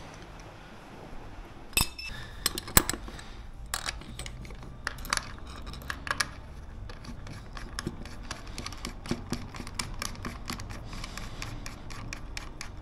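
Small metal parts and tools clinking and knocking as they are handled and fitted together: a string of irregular sharp clicks starting about two seconds in, the first with a brief metallic ring, over a faint low hum.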